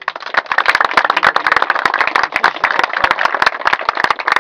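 A crowd of men clapping: loud, dense, hearty applause.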